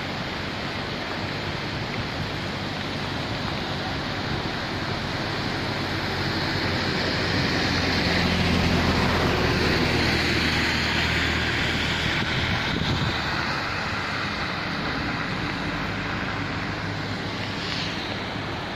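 Muddy floodwater rushing past in a steady, loud wash. It swells in the middle, where a low engine hum rises and then fades.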